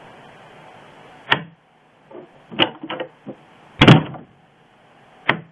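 A door with an electronic lock being handled: a series of sharp clicks and knocks, with the loudest knock about four seconds in.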